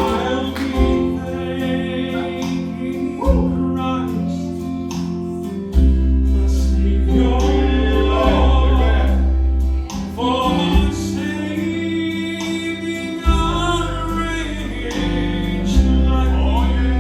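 Southern gospel quartet singing in harmony over instrumental accompaniment with a strong, sustained bass line.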